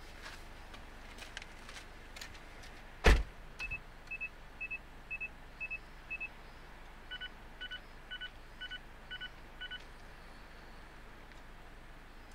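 A sharp thump, then a run of short electronic beeps: six evenly spaced beeps about two a second, followed by six more at a different tone.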